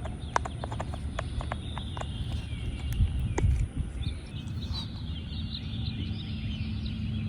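Scattered sharp clicks and a couple of low thumps, the loudest about three seconds in, then small birds chirping rapidly through the second half.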